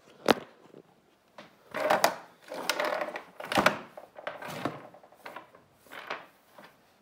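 Objects being cleared off a wooden desktop by hand: a sharp knock, then several scrapes and clatters as things slide across the wood, ending in lighter brushing of hands over the bare surface.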